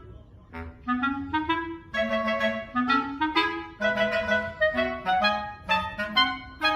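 Background music: a bouncy clarinet-led tune of short, quick notes.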